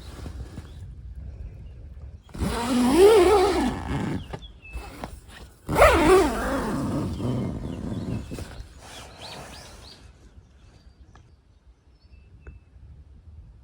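Two loud animal calls about three seconds apart, each with a wavering, bending pitch.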